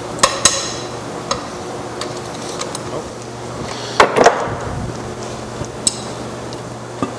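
Hand tools on a Ford 5.0 Aluminator V8's aluminium block: sharp metallic snaps with a high ring near the start as a breaker bar cracks the cylinder head bolts loose. About four seconds in comes a louder metal clunk as the cylinder head comes off the block, then a few light clicks.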